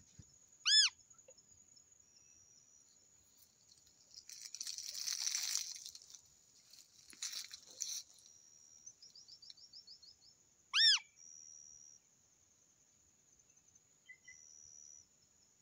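Wild birds calling in open countryside: two short, loud, arched calls about ten seconds apart, with softer high chirps and a quick trill between them. A steady high insect whine runs underneath, with a stretch of rustling in the middle.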